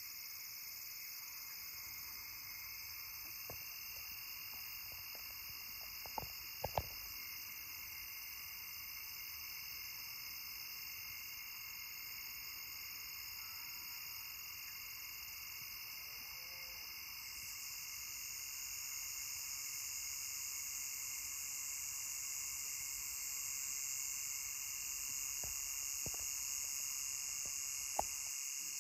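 Night insect chorus of crickets and similar insects: a steady, shrill drone in several high bands, growing louder a little past halfway. A few sharp clicks come about six to seven seconds in and again near the end.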